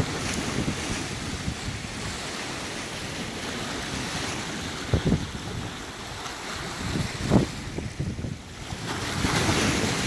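Small waves breaking and washing over rocky boulders, a steady hiss of surf with a few low thumps and a louder surge of wash near the end. Wind buffets the microphone.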